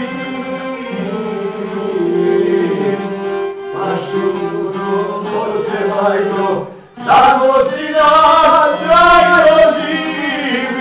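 Men singing a folk song in full voice, accompanied by violin and a long-necked plucked lute. The music dips briefly a little before seven seconds in, then the singing comes back loud.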